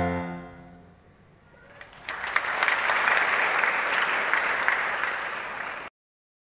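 The last sung chord of a children's choir fades away, then a church congregation applauds from about two seconds in. The clapping stops abruptly near the end.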